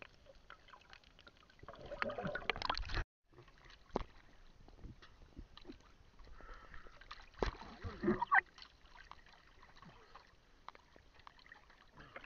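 Sea water sloshing and splashing against a small boat's hull at the waterline, with a few light knocks as a fishing net is hauled in by hand. The sound drops out briefly about three seconds in.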